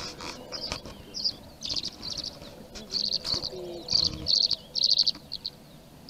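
Tree swallows chirping: short, high twittering calls in quick clusters of several notes, repeating every half second or so. The loudest clusters come around the middle.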